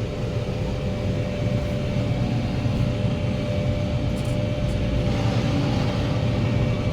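Tractor running steadily, driving a flail mower cutting the bank, with a constant low rumble and a steady whine.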